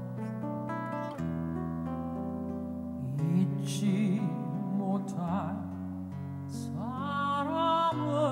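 Live ballad: acoustic guitar and held accompaniment chords under a woman's low singing voice.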